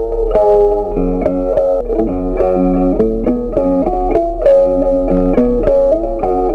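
Background music: an instrumental tune of plucked guitar-like notes, several notes a second.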